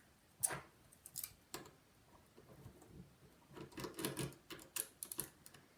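Small, irregular clicks and ticks of a precision screwdriver working a tiny screw in an iPhone 5's logic board, with a denser run of clicks after about three and a half seconds.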